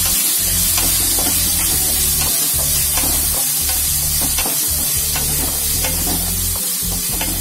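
Diced potatoes sizzling in hot oil with spices as they are stirred and sautéed in an enamel pot, with short scrapes and taps of the spatula against the pan.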